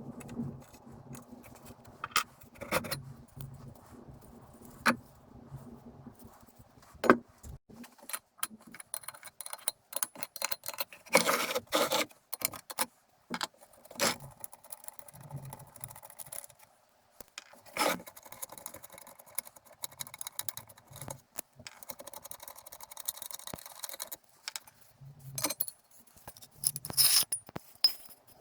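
Small metal parts and hand tools clinking, rattling and scraping at irregular intervals while a benchtop drill press is being dismantled, with sharp knocks scattered throughout.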